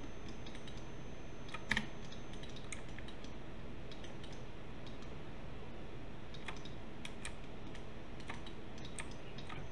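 Irregular, scattered clicks of a computer keyboard and mouse, the loudest just under two seconds in, over a steady low hiss.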